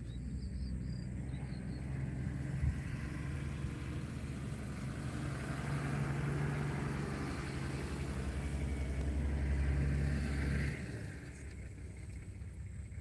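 A safari vehicle's engine running with a low, steady hum. It grows louder, then drops away suddenly about eleven seconds in.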